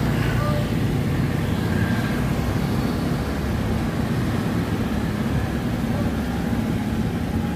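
Steady low rumble of street traffic, with motor vehicles running past.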